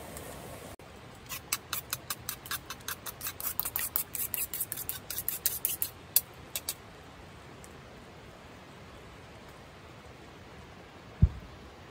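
Chopsticks clicking quickly and unevenly against a small metal bowl for about five seconds, as when beating an egg for sukiyaki, over the soft steady hiss of a gas camping stove. A single low thump near the end.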